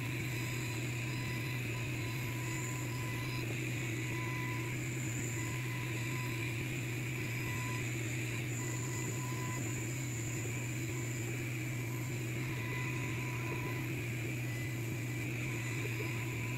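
Longer Ray 5 10 W diode laser engraver cutting, with a steady machine hum and a thin whine from the gantry motors that comes and goes as the head moves.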